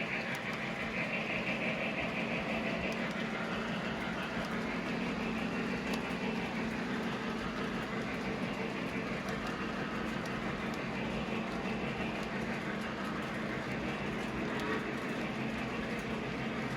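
Model train running on the layout: a steady rumble of the locomotive and wheels on the track.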